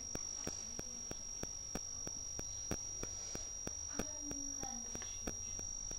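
Cricket trilling steadily on one high pitch, with a run of faint ticks and a brief faint voice about four seconds in.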